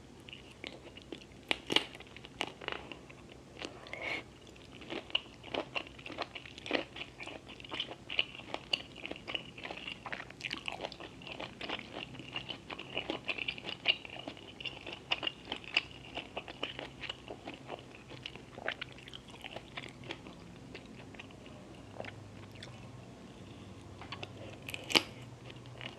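Close-miked eating sounds: steady chewing with many crisp, crunchy bites, thinning out about 20 seconds in, then one sharp crunch near the end.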